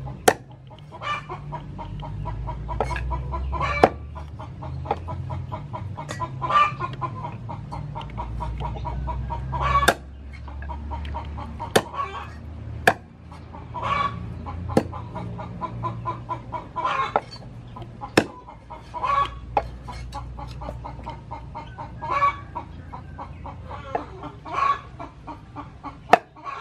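Meat cleaver chopping raw chicken on a wooden cutting board: sharp single chops, irregularly spaced a second to several seconds apart, while chickens cluck.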